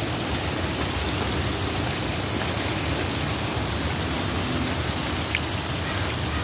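Steady rain falling, an even hiss with a single faint click about five seconds in.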